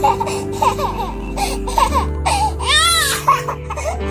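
A baby crying: short whimpers, then one long rising-and-falling wail about two seconds in, over background music with sustained notes.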